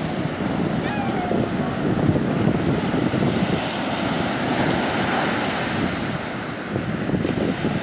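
Mediterranean sea waves breaking and washing up on a sandy beach: a steady rushing surf that swells and eases.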